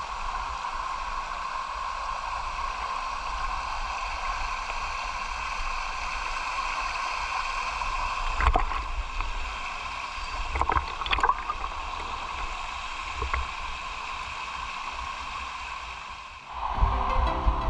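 Fast-flowing river water rushing steadily over rocks in a small cascade, with a few brief splashes and knocks about halfway through. Music comes in near the end.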